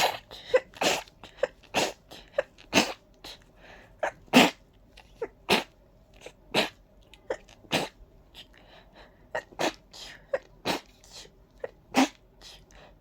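A person's sneezing fit: a long run of short, sharp sneezes, roughly one a second, with softer ones in between. It is an allergic fit brought on by ragweed hay fever with a stuffy nose.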